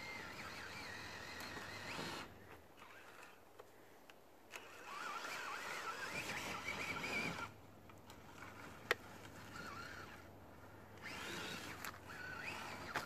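Traxxas TRX-4 RC crawler's sensorless brushless motor and geared drivetrain, in low range, giving off a faint wavering whine in three bursts as throttle is applied, with quieter pauses between. There is a single sharp click about 9 seconds in.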